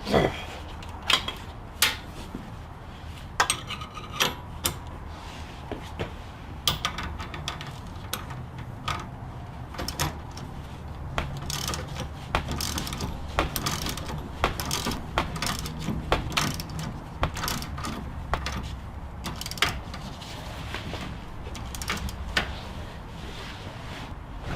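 Ratchet and socket clicking, with metal tools clinking at irregular intervals, as a new sway bar link is bolted onto the front suspension.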